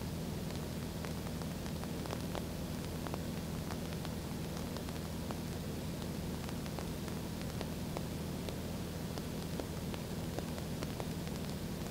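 Steady in-flight drone of a 1960 Mooney M20A's four-cylinder Lycoming engine and propeller in cruise: an even low hum under a constant hiss.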